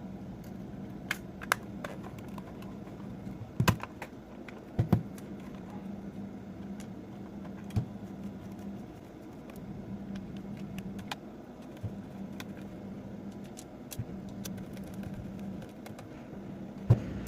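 Plastic clicks and knocks as a vacuum cleaner battery pack's case shells are fitted together, with a few louder knocks, over a steady low hum.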